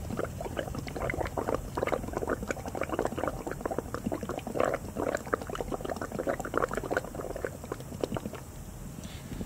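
Breath blown through a plastic drinking straw into water in a glass test tube: rapid, irregular bubbling that thins out near the end.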